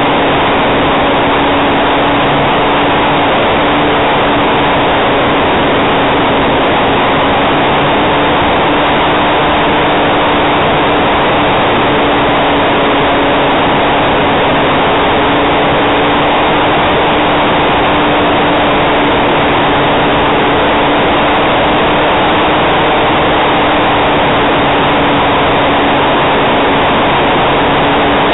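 Hype Cessna 400 Corvalis RC model plane's electric motor and propeller running steadily in flight, heard from its onboard camera, with a steady hum under heavy wind rush on the microphone.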